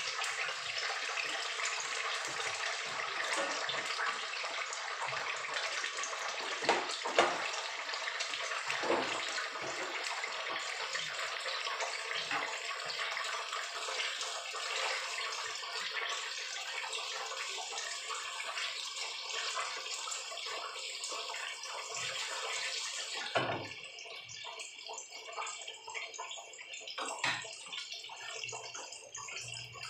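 Fish cake pieces sizzling as they fry in hot oil in a frying pan, a steady crackling hiss with a few sharp taps and scrapes of a spatula. About three-quarters of the way through the sizzle drops to a quieter level and carries on.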